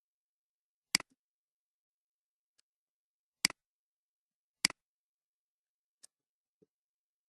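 Three sharp computer mouse clicks, each a quick press-and-release double tick, the last two about a second apart, with a few much fainter ticks between them.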